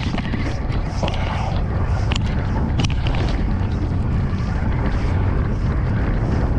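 Steady low rumble of a fishing boat's engine, with wind on the microphone and a few light knocks.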